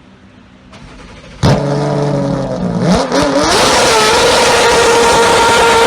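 Race car engine starting suddenly about a second and a half in, its pitch falling and then revving up about three seconds in to a steady high-rpm note.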